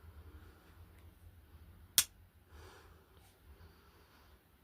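A single sharp click about two seconds in from a William Rodgers Sheffield jackknife's blade snapping shut on its backspring as the knife's action is worked.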